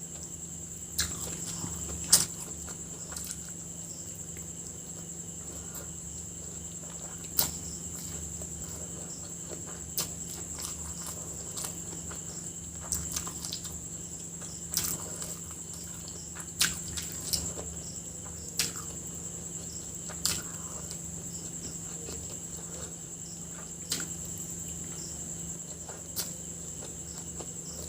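Someone eating with no talking: about a dozen short, sharp clicks and smacks at irregular intervals. A steady high-pitched whine and a low hum run underneath.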